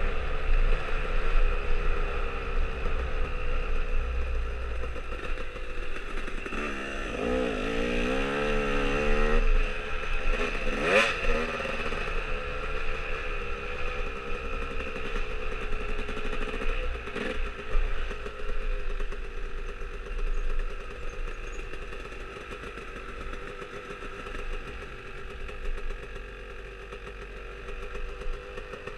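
Onboard sound of a dirt bike engine running along a trail, its pitch rising and falling with the throttle, with a sharp knock about eleven seconds in. The engine gets quieter in the second half as the bike slows to a stop.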